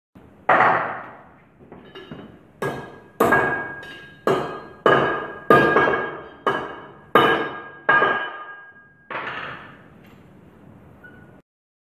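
Hand hammer striking pieces of cut steel chain link, about ten heavy blows at an uneven pace with a few light taps between, each blow ringing out. The blows bend the cut links open.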